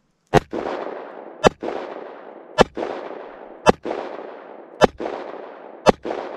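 Six shots from a Smith & Wesson Model 15 .38 Special revolver, fired rapid-fire about one a second, each followed by a trailing echo.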